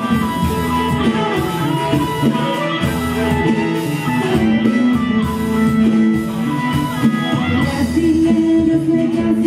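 A live band playing: electric and acoustic guitars over bass and keyboard, with some singing.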